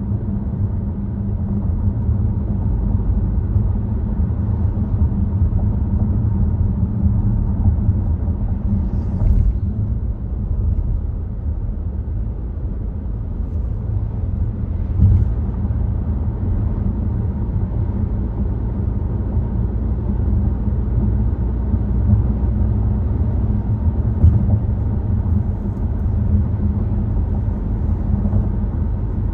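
Volvo XC60 driving at road speed: a steady low rumble of road and engine noise, with a few brief faint knocks, about 9, 15 and 24 seconds in.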